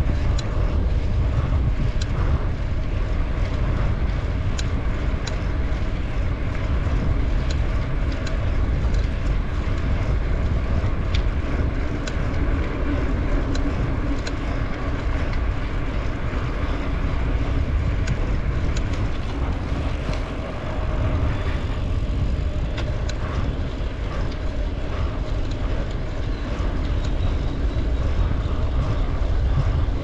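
Wind rushing over the microphone of a camera on a moving bicycle, with tyres rolling on asphalt and occasional faint ticks.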